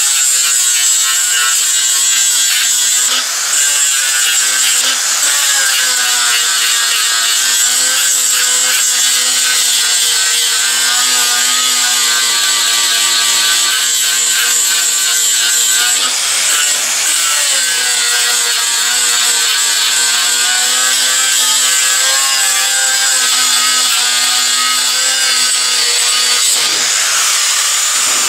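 Electric angle grinder with an abrasive disc grinding weld remnants off a steel bar: a steady motor whine over a loud grinding hiss. The whine dips in pitch briefly three times, about three seconds in, around halfway and near the end, as the disc bites harder into the steel.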